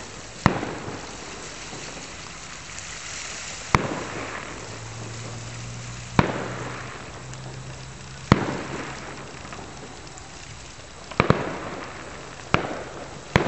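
Aerial fireworks shells bursting: about eight sharp bangs, one every second or two, two of them close together near the end, each trailing off in an echo. A steady hiss lies underneath, with a faint low hum in the middle.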